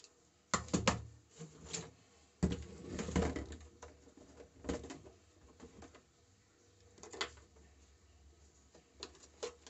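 Hard plastic drill case being pulled over, unlatched and opened, with scattered clicks and knocks and a short clattering stretch as the drill bits are handled.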